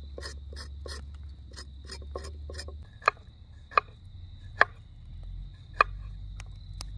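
Knife blade scraping the tough skin off a burdock root on a wooden cutting board, even strokes about three a second. About three seconds in it changes to the knife cutting the peeled root against the board: four sharp knocks, the loudest sounds, under a second apart, with a few lighter taps.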